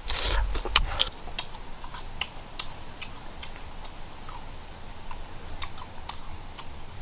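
Crunching and chewing of crisp fried food: a burst of crunching in the first second, then scattered sharp crackles.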